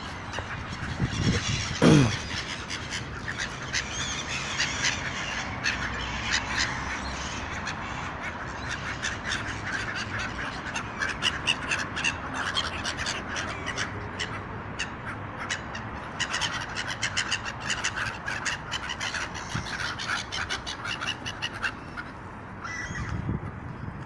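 A flock of birds calling over one another, with cawing among the many short calls. About two seconds in, a louder sound slides steeply down in pitch.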